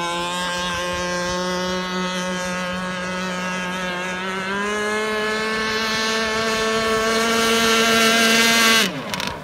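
Gas two-stroke engine of a large RC speedboat running at speed with a steady high-pitched drone. About halfway through the pitch rises a little and it gets louder. Just before the end the pitch and level fall off sharply.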